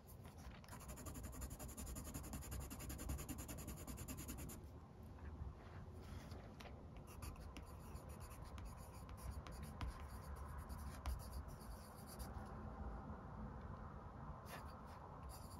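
Derwent Artists coloured pencil scratching faintly on paper: a few seconds of rapid back-and-forth shading strokes, then slower, separate strokes of handwriting.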